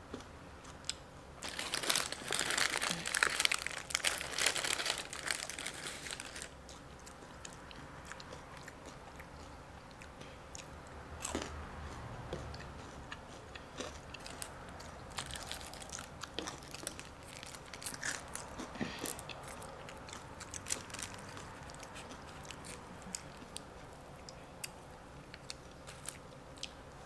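A person eating close to the microphone, biting and chewing food. A louder, rougher stretch of noise runs from about two to six seconds in, then quieter chewing with scattered small clicks.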